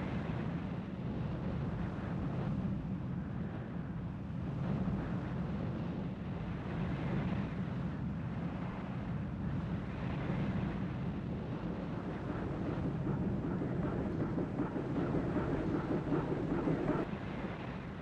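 Sound-effects-library harbour ambience: a steady deep boat-engine drone under wind and water wash, dropping away sharply about a second before the end.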